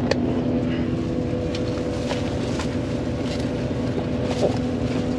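Coach bus heard from inside the passenger cabin: a steady low hum and rumble with a constant droning tone, and a few faint clicks.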